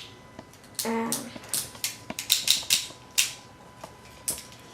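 Irregular sharp clicks and knocks of a die-cast robot toy's lion piece being handled and its joints folded into leg form.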